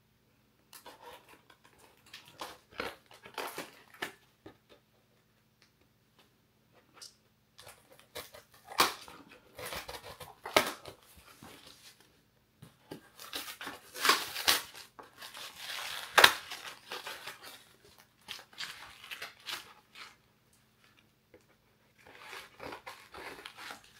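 Scissors cutting into a cardboard box, with snips, crackling and tearing of the cardboard and packaging in irregular bursts and a couple of short pauses.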